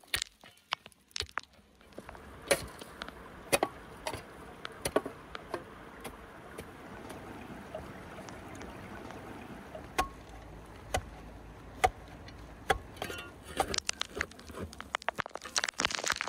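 Small folding shovel digging into stony soil: irregular scrapes and knocks of the blade against dirt and stones, about one a second, with a dense run of scraping near the end, over a steady background hiss.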